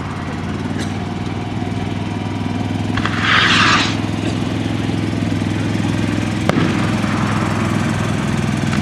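A hand-made skyrocket launching with a short rushing hiss about three seconds in, over the steady drone of an engine running in the background. A single sharp crack comes about two-thirds of the way through.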